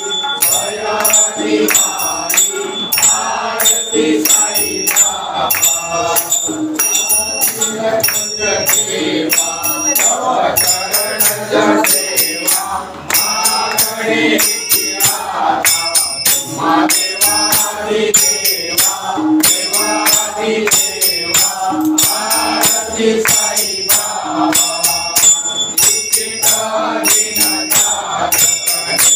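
Group of devotees singing an aarti in chorus, accompanied by metallic percussion struck in a steady beat.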